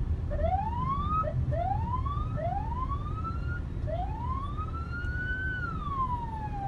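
Police car siren giving three short rising whoops, then a longer wail that rises and falls away, over the low rumble of traffic.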